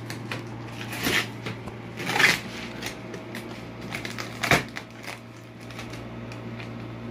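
Hands opening a taped cardboard shipping box: scratching and pulling at the packing tape with cardboard rustling, a few louder scrapes and a sharp knock about four and a half seconds in.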